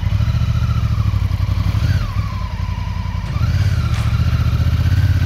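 Honda Africa Twin's parallel-twin engine running at low revs, easing off about two seconds in and picking up again a second later.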